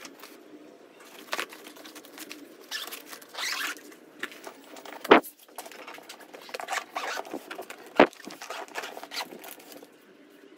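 Blue Aristocrat hard-shell suitcase being packed and closed by hand: clothes rustling and scraping against the plastic shell, with two sharp knocks of the shell, about five and eight seconds in.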